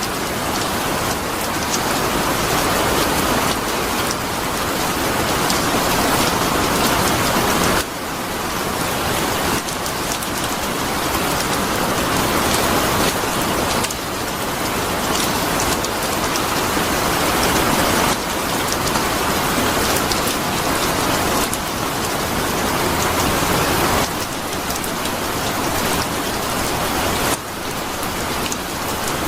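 Steady, heavy rain falling on a surface. Every few seconds the level drops suddenly, then builds up again.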